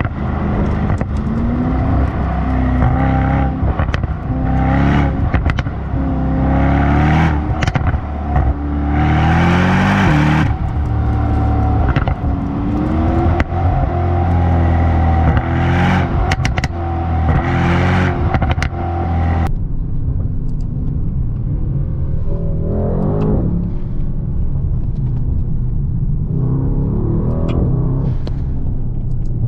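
Brabus Rocket GT 900's twin-turbo V8 under hard acceleration: the engine note repeatedly rises and drops back as it climbs through the gears, with a few sharp exhaust cracks. About twenty seconds in it abruptly eases off to quieter running, with two short rev rises near the end.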